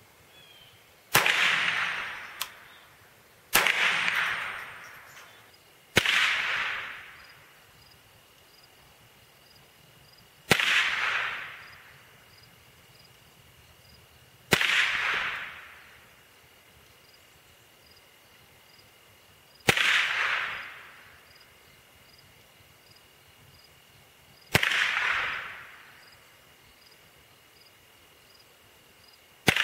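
Ruger SR-22 .22 LR semi-automatic rifle fired eight slow, deliberate single shots a few seconds apart. Each crack trails off over about a second.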